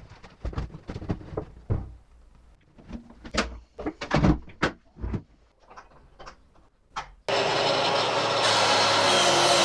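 Rustling, plastic knocks and clicks as a filter bag is fitted into a Kärcher wet/dry vacuum and its plastic lid is closed. A little past seven seconds a vacuum cleaner starts abruptly and runs loud and steady.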